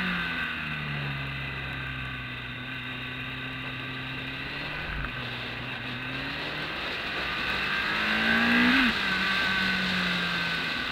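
Onboard sound of a BMW K1200S's inline-four engine at speed, with wind rushing over the microphone. The engine note sinks as the bike slows for a corner, with a short knock about five seconds in. It then climbs under acceleration and drops suddenly near the end, as at a gear change.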